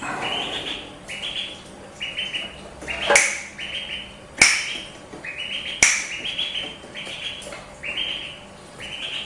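Duckling peeping over and over, about once a second, each peep short and high-pitched. Three sharp clicks stand out about three, four and a half and six seconds in, louder than the peeps.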